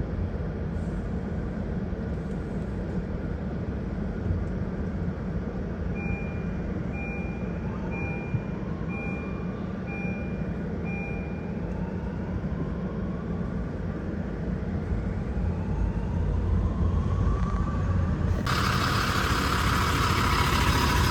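Fire truck's diesel engine running, with a reversing alarm beeping six times about a second apart. Later the engine pitch rises in several sweeps and it gets louder, with a sudden jump in hiss near the end.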